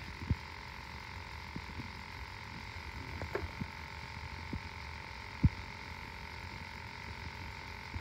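H10 Pro refrigerant leak detector sniffing for R-134a, giving a faint steady tone with no alarm, while a few light clicks and one sharper knock about halfway through come from the probe and handling around the refrigerator's machine compartment.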